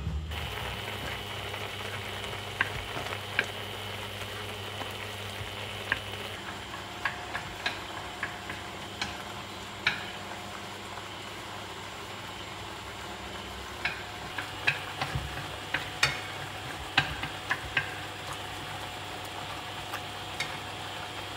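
Clams cooking in a frying pan on the stove, a steady hiss, with chopsticks tapping and scraping against the pan in irregular clicks.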